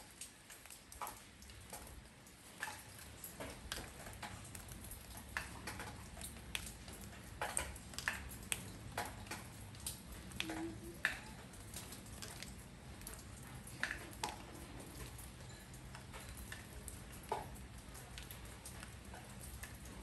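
Raindrops falling on a porch: scattered, irregular drips ticking and pattering over a faint steady hiss and a low rumble.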